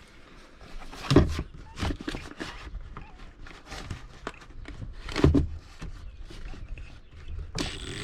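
Irregular knocks, taps and rustling from hands working parts and wiring, with two heavier thumps about a second in and about five seconds in. Just before the end, louder music with an even beat comes in.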